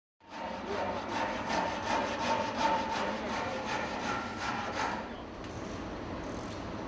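Hand saw cutting through a small wooden block in quick, even back-and-forth strokes. The sawing stops about five seconds in.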